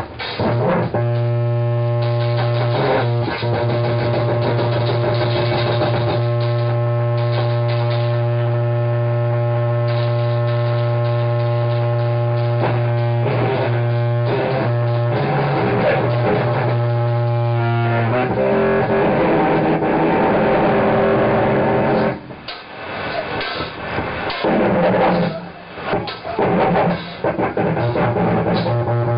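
Live improvised noise music. A loud, distorted drone holds one low pitch for about eighteen seconds, then turns rough and dense. From about twenty-two seconds it breaks into choppy stop-start bursts.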